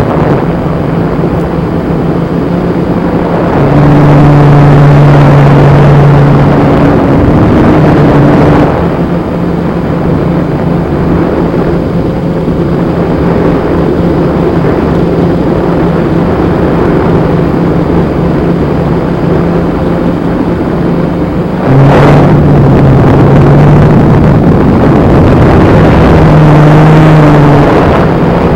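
Blade Chroma quadcopter's motors and propellers running in flight, heard over the FPV video link's audio: a loud hum under a rush of noise, its pitch and level stepping up and down as the throttle changes, louder twice. A single sharp click about 22 seconds in.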